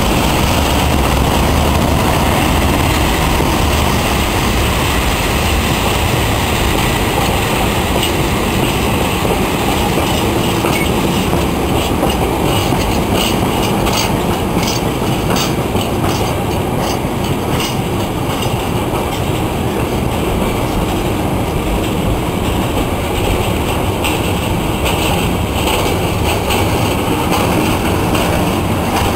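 Freight train of container flat wagons rolling past close by: a steady rumble of steel wheels on rail, with clickety-clack beats over the rail joints from about the middle on.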